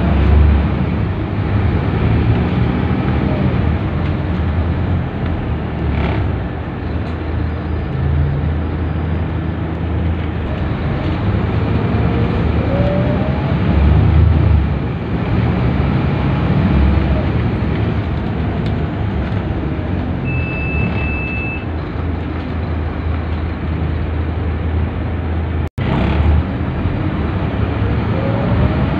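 Inside a Scania K230UB city bus under way: its rear-mounted diesel engine and driveline running with tyre and road noise, and a rising whine three times as it gathers speed, near the start, about halfway and near the end. A short high beep sounds a little past the middle.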